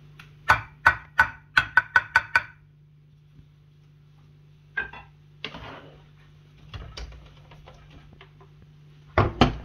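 A wooden spoon tapping and scraping on a ceramic plate while rice is served: a quick run of about seven ringing taps in the first two and a half seconds, a scrape and scattered light clicks midway, and two louder knocks near the end.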